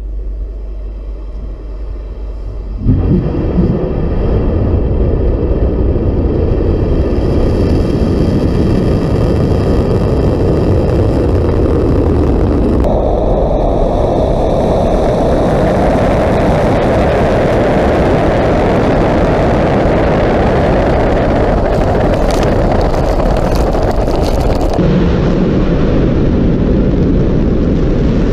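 Angara-A5 rocket's engines at ignition and liftoff: a dense, deep noise that steps up sharply in loudness about three seconds in and then holds steady, shifting abruptly in tone twice, about halfway through and near the end.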